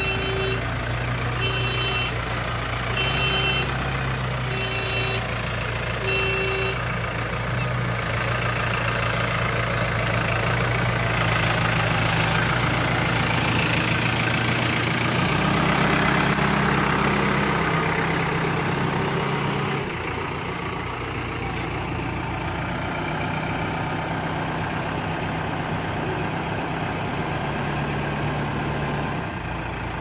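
Escorts Digmax II backhoe loader's diesel engine running, its reverse alarm beeping about every second and a half for the first several seconds, then stopping. The engine speed rises and falls as the machine works, louder for a few seconds near the middle.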